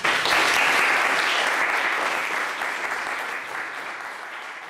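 Audience applauding, the clapping fading away steadily after its first second.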